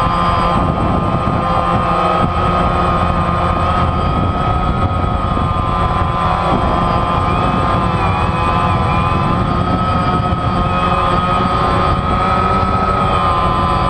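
DJI Phantom quadcopter's four electric motors and propellers whining steadily in flight, heard from a camera mounted on the drone itself, the pitch wavering slightly as the motors adjust speed.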